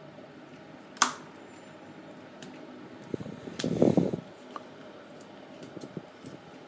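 Hands and small tools handling iPod parts during reassembly: a sharp click about a second in, then a brief scraping rustle near four seconds in, with scattered light ticks over a faint steady hum.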